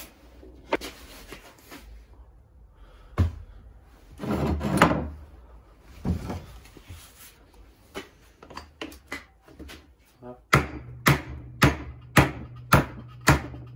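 Hammer blows on a piece of wood held against the iron cylinder of a 1957 Harley-Davidson flathead V-twin, a regular run of sharp knocks about two a second starting about ten seconds in, to break the stuck base gasket loose between cylinder and crankcase. Before that, handling noises and a single knock.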